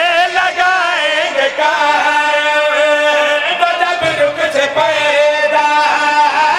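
A group of men singing an Urdu devotional verse together into microphones. They hold long notes with ornamented bends in pitch and do not pause.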